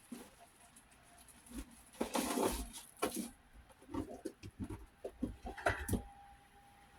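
Kitchen handling noise: a short scrape and then a string of light knocks and clatters as cookware is shifted about on the stovetop.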